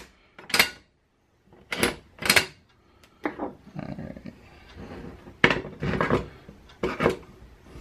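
A series of irregular metallic clicks and knocks as the trigger group of a Remington 11-87 shotgun is worked back up into its receiver by hand.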